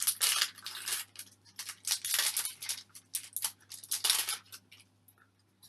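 Foil wrapper of a Pokémon TCG Breakpoint booster pack crinkling in a run of repeated strokes as it is rubbed and handled by hand, stopping about four and a half seconds in.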